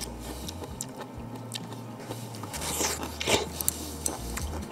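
A person biting into and chewing a mouthful of stir-fried savoy cabbage, with scattered soft crunches and clicks.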